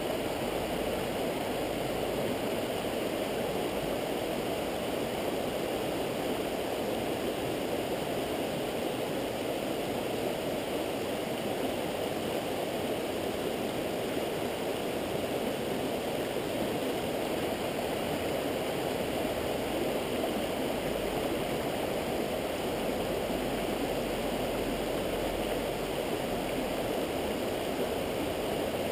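Steady rush of a clear mountain stream running over rocks and riffles, an even noise that does not change.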